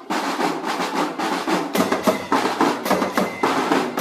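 Marching drumband playing snare and bass drums in a dense, rapid pattern.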